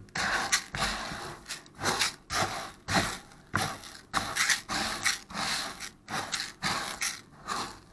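Dry uncooked rice grains being raked and swirled by hand in a plastic bowl, a run of short rustling scrapes at roughly two a second as the rice is picked over for debris.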